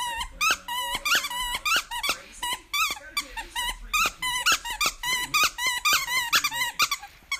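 English bulldog chewing a plush squeaky toy, setting off a rapid, unbroken run of short rise-and-fall squeaks, about three a second.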